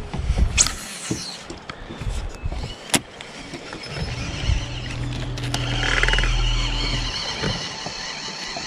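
Bow-mounted electric trolling motor humming steadily for about two and a half seconds, starting a little past halfway and then cutting off. Earlier there are a few sharp clicks and knocks.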